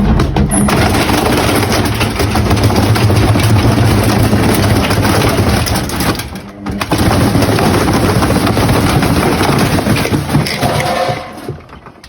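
Loud, continuous mechanical clattering and banging, like a machine shaking itself apart, with a brief break about six and a half seconds in; it dies away near the end.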